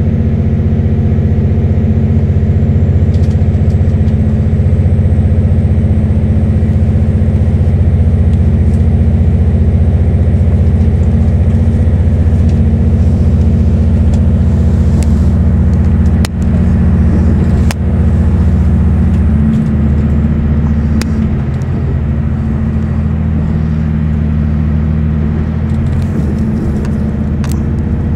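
Diesel passenger train heard from inside the carriage as it runs past the station: a loud, steady low engine drone with running noise. Two sharp clicks come a little past the middle.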